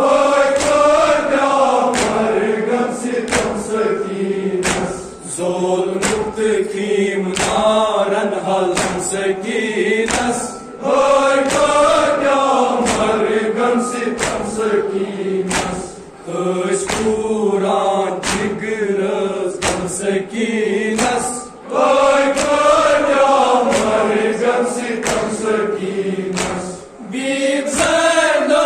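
A group of voices chanting a Kashmiri noha (Muharram lament) in unison, in sung lines a few seconds long with brief breaths between them. Sharp beats keep time a little more than once a second.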